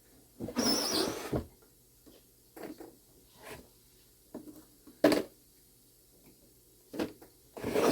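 Tools and small clock-movement parts being handled on a workbench: a rustling, scraping burst near the start, then scattered light clicks and knocks, with one sharp click about five seconds in.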